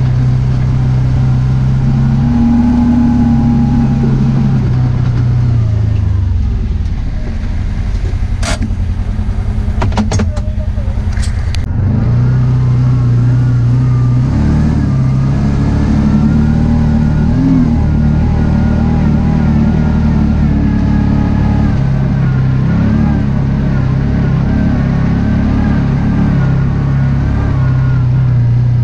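Kawasaki Teryx4 side-by-side's V-twin engine running under load, heard from inside the cab. The engine eases off for several seconds in the middle, a few sharp knocks come through, and then it pulls strongly again.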